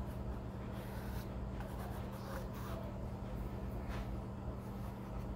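Small round paintbrush stroking black oil paint onto canvas: a few faint brushing strokes, over a steady low hum.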